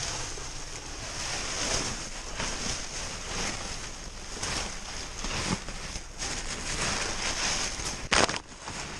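Plastic bags, bubble wrap and brown packing paper rustling and crinkling as gloved hands dig through dumpster trash, with one brief, loud sharp crackle about eight seconds in.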